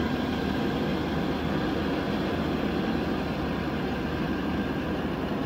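Four-wheel-drive engine running with a steady low rumble.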